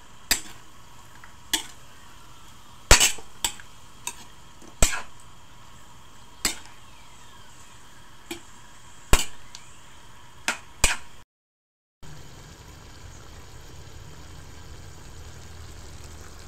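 A metal spatula knocking and scraping against a metal wok while raw chicken pieces are stirred: about a dozen sharp clinks, irregularly spaced, for roughly eleven seconds. After a brief break, a steady hiss of the chicken simmering in its adobo sauce.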